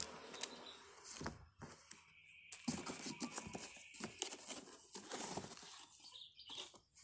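Cardboard shipping box being handled and its end flap worked open by hand: irregular scraping, rustling and light knocks, with a thin high whine for a second or two in the middle.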